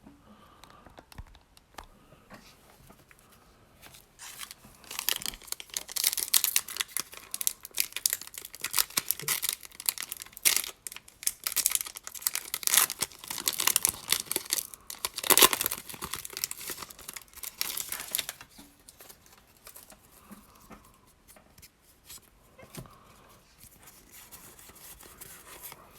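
Foil Pokémon booster pack wrapper being torn open and crinkled: a dense run of crackling starts about four seconds in and lasts about fourteen seconds, loudest just before it ends. Quieter rustling of handling follows.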